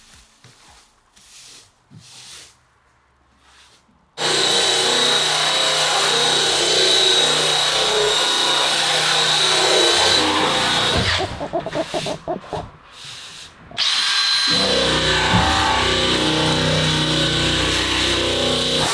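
A handheld power sander working on a car's sheet-metal body panel: after about four seconds of near quiet it starts suddenly and runs with a steady high whine over a rasping noise, stutters on and off for a few seconds past the middle, then runs steadily again.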